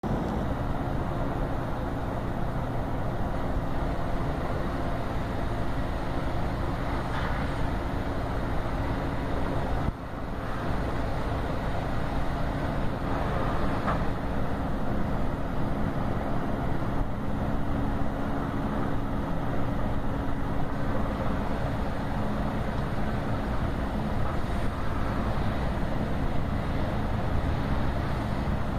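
Ferry engines running with a steady low rumble and drone while the boat lies at the dock, with water and harbour noise underneath; the sound dips briefly about ten seconds in, then carries on unchanged.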